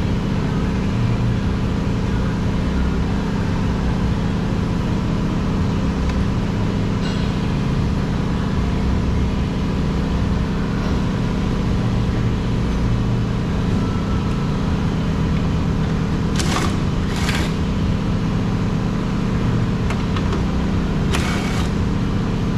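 Steady machine hum, like a running engine or motor, with three short hissing bursts in the last quarter.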